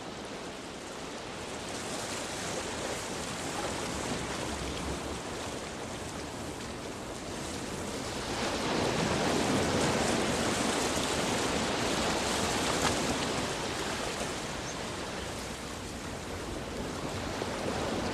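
Ocean surf: a continuous rush of breaking waves, swelling louder about halfway through.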